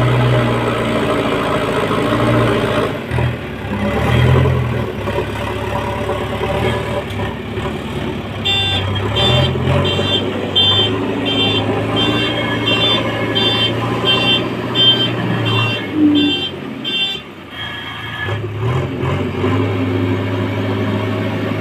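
JCB 3DX backhoe loader's diesel engine running, its revs rising and falling as it works. A reversing alarm beeps about twice a second through the middle of the stretch.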